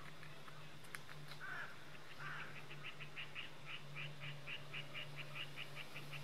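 Rapid, even series of short, high calls, about five a second, starting about two and a half seconds in after two softer, lower calls. A faint low hum runs beneath.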